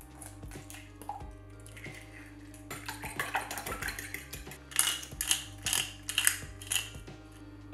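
A metal fork whisking eggs in a glass bowl, clinking against the glass. A fast patter about three seconds in gives way to a handful of sharper, louder clinks about two a second, over background music.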